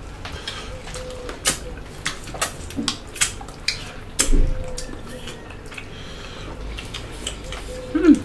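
Close-up eating sounds: chewing and mouth clicks and smacks from hand-eaten salad and pork, scattered through the first half. A few short hummed murmurs come in the middle and just before the end.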